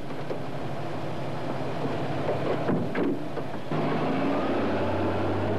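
Toyota Land Cruiser ute engine pulling away and gathering speed: a few short knocks first, then about two-thirds of the way in the engine note steps up and climbs steadily as the vehicle accelerates.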